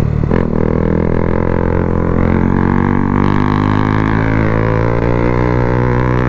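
Motorcycle fitted with an aftermarket Akrapovič exhaust, cruising at nearly steady revs: a deep, even exhaust drone, dipping a little in pitch and rising again.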